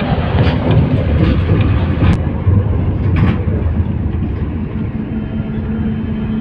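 Running noise inside an air-conditioned bus on the move: a heavy low rumble of engine and tyres on the road, with a few sharp knocks. It is louder in the first half while a truck passes close alongside, and a steady hum comes in about five seconds in.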